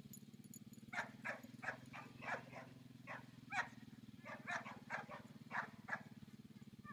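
A dog barking repeatedly in quick, short barks, about three a second, starting about a second in.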